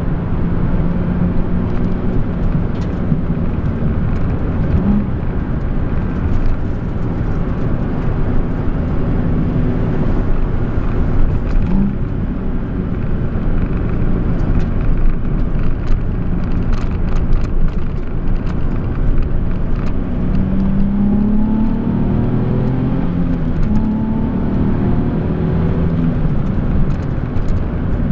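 Nissan 370Z's 3.7-litre V6 engine running under way, heard from inside the cabin over tyre and road noise. Its note rises and falls with the throttle, climbing in pitch as the car accelerates about twenty seconds in.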